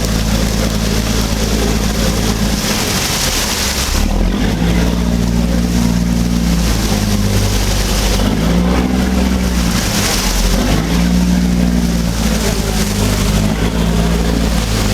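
Engine of a motor passenger boat under way, a steady low drone, under a loud hiss of wind and water that rises and falls every few seconds.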